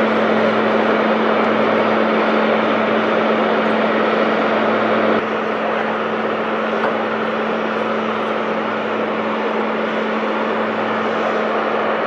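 Chairlift machinery running at the loading station: a steady mechanical hum over a dense rushing noise, dropping a little in level about five seconds in.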